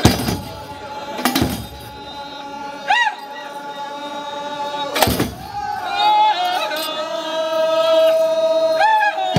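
Ahwach chant: a chorus of men holds long sung notes, with the pitch swooping up and down. A few loud strikes on large frame drums come at the start, about a second in, and about five seconds in.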